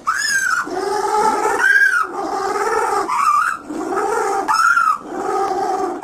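An animal calling over and over, about every one and a half seconds: each call opens with a short high rise-and-fall and then drags out into a lower, harsher held note.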